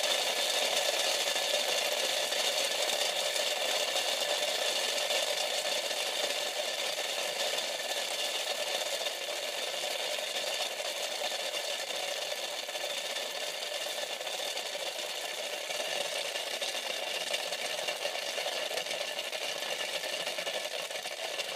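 Styrofoam packing pellets, charged to tens of kilovolts, bouncing between the aluminium-taped base and lid of a plastic CD spindle cover in a fast, continuous rattle. It eases off slowly over the first half as the static charge drains.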